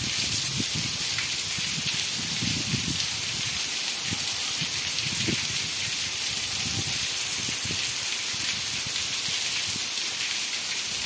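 Steady rain hiss, with drips from a roof edge landing close by as scattered soft thuds.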